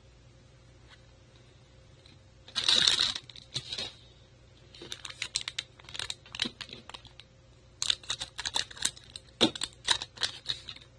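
Trading cards being handled by hand: a short scrape as cards slide against each other about three seconds in, then two runs of quick light clicks and rubbing as the cards are shuffled and tapped.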